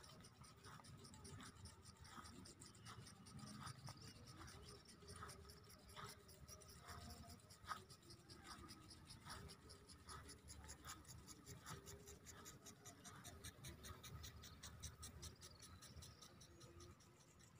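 Faint, even ticking of an impact sprinkler watering grass, about one and a half clicks a second.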